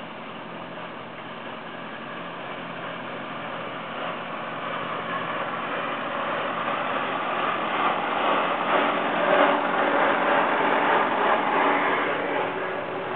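Antique farm tractor engine running as the tractor drives past, growing louder as it nears, loudest about two-thirds of the way through, then easing off a little.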